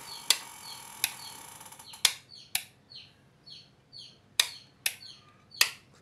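Wall light switches of an intermediate (4-way) switching circuit clicking on and off, about seven sharp clicks. Under them a bird chirps faintly and repeatedly, short falling chirps about twice a second.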